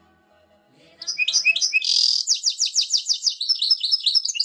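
Bird song: a fast trill of short, high chirps, about eight a second, starting about a second in.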